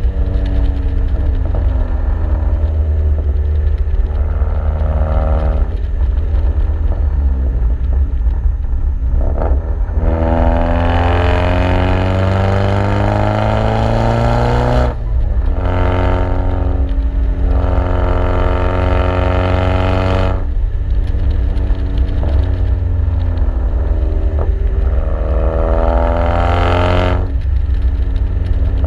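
Exhaust of a 2009 Chevy Cobalt SS's turbocharged 2.0-litre four-cylinder, running through a TurboXS RFL exhaust and catless downpipe, heard from outside the moving car. The note climbs in pitch through several pulls, dropping sharply at each upshift, about midway, about two-thirds in and near the end, over a steady low rumble of wind and road noise.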